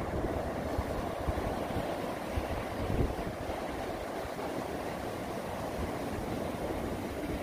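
Ocean surf washing onto the beach in a steady rush, with wind buffeting the microphone in low rumbling gusts, one stronger about three seconds in.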